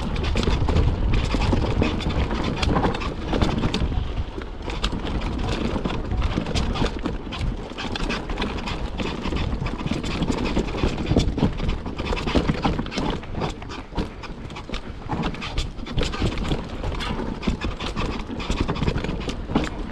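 Cube Stereo 120 Race 29 full-suspension mountain bike rattling down a rough dirt trail: tyres on dirt and roots, chain and frame clattering in a steady stream of small knocks over a low rumble.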